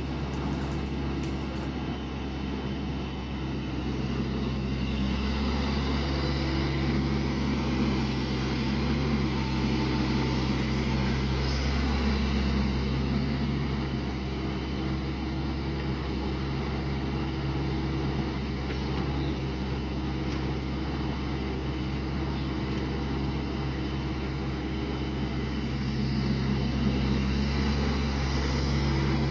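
Small excavator engine running steadily, its loudness swelling slightly now and then and rising near the end.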